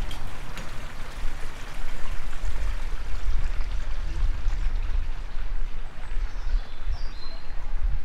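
Wind buffeting the microphone outdoors, a gusty low rumble, with a brief bird chirp near the end.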